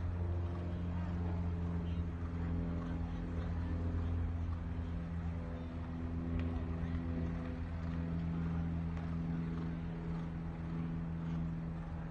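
An engine running steadily at one even pitch, a low hum.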